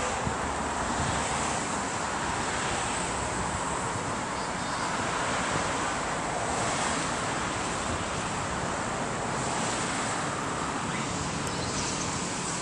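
Steady outdoor noise, a hiss that swells and eases every few seconds, with no distinct events.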